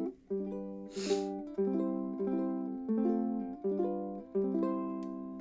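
Pohaku concert ukulele with a cedar top and walnut back and sides, strummed in a run of chords, a new one roughly every two-thirds of a second, each ringing out and fading. A short hiss comes about a second in.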